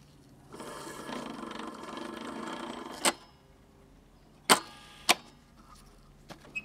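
A faint, muffled sound lasting about two and a half seconds, then three sharp clicks as the controls of a small portable reel-to-reel tape recorder are worked by hand.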